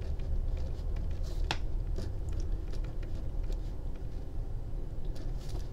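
Pen writing on a sheet of graph paper: faint scratches and small taps of the pen tip, with one sharper tick about a second and a half in, over a low steady hum.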